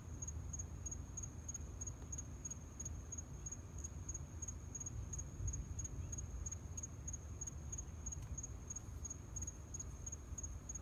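A cricket chirping steadily, a high, even pulse about four times a second, over a low steady rumble.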